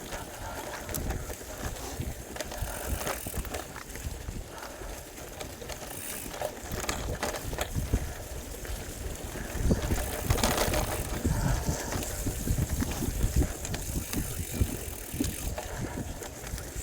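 Bicycle being ridden along a trail, its tyres and frame rattling with scattered clicks and knocks over bumps, and wind buffeting the microphone.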